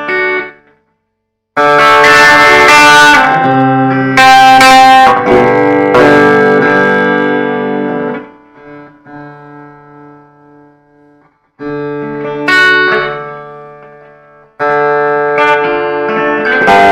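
Electric guitar played with a clean tone through an amplifier: chords strummed and left to ring out and fade, several times, with short near-silent gaps between them.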